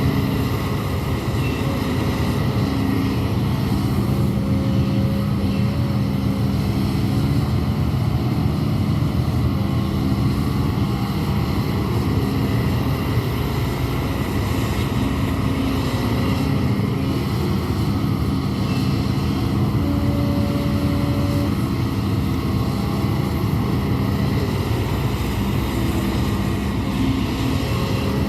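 Hidromek 200W wheeled excavator's diesel engine running steadily, its pitch shifting slightly now and then as the machine works.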